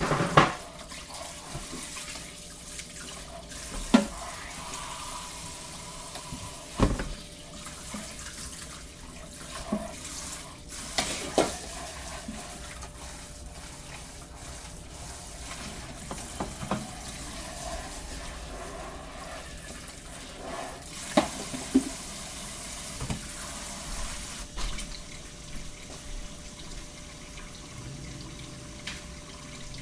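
Kitchen tap running into a sink while things are washed, with a few sharp knocks and clatters against the sink and counter. The running water stops about four-fifths of the way through.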